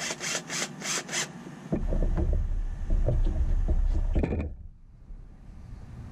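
Cordless drill driving screws into wooden boards: several short quick bursts at first, then one longer, louder run of about two and a half seconds that stops.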